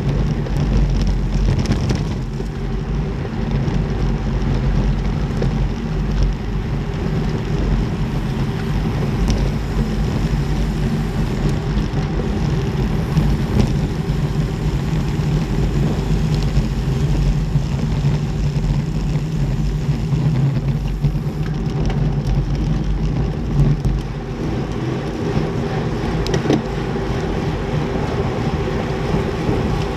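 Steady wind and tyre noise on a bike-mounted camera's microphone while riding a road bike at about 40–45 km/h in a racing bunch.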